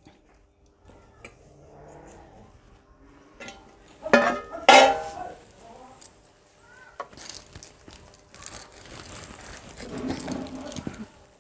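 Small clinks and rustles of steel bowls and spice containers being handled while spices are added to flour, with a brief loud call about four seconds in and a spell of rustling in the second half.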